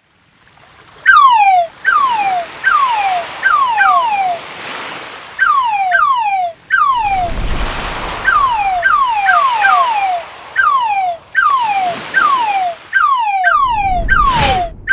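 A crab sound effect: short whistle-like chirps that each slide down in pitch, repeated irregularly about one to two times a second, starting about a second in. Beneath them a rushing noise swells and fades like surf, and a loud noisy burst comes near the end.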